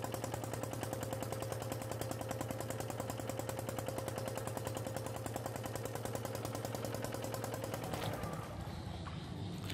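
Small boat engine running with a rapid, even putting beat, which drops away about eight seconds in.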